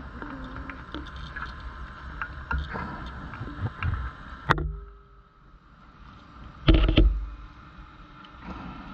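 Underwater sound of a scuba diver on a wreck dive: steady noise with scattered clicks and knocks, a sharp click about four and a half seconds in, then a loud rush of exhaled regulator bubbles about seven seconds in.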